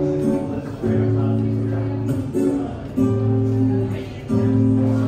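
Background music led by guitar, its chords held for about a second each before changing.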